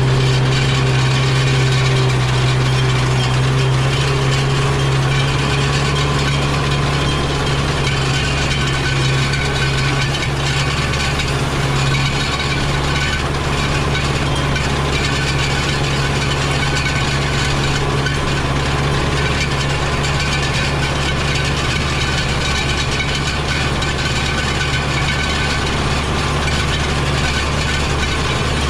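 Tractor engine running steadily under a continuous mechanical clatter, its low drone dipping slightly in pitch about twelve seconds in.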